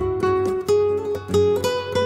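Background music: a plucked-string melody of quick notes, one after another, over low bass notes.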